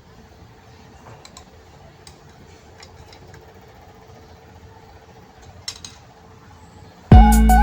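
Faint steady background hum with a few light clicks, then loud music starts suddenly near the end.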